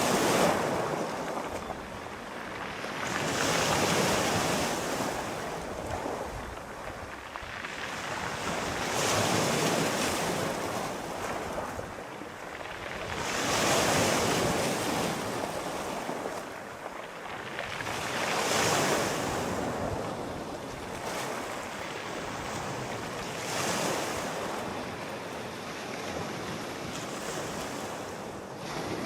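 Sea waves breaking and washing up the shore, one surge swelling and fading about every five seconds.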